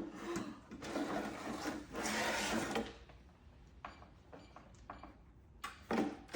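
Metal rattling quickly, then a run of small separate clicks: a lock being picked.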